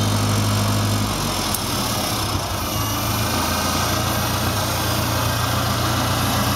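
The 1972 Farmall Cub's four-cylinder flathead gasoline engine running; about a second in it quietens as the throttle is pulled back, then it idles steadily.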